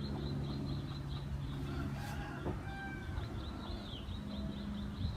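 Chickens clucking in the background, with a run of quick high chirps. A steady low hum runs underneath.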